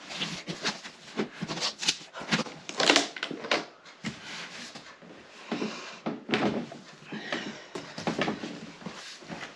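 Cardboard box and packaging being opened and handled by hand: irregular scrapes, rustles and knocks.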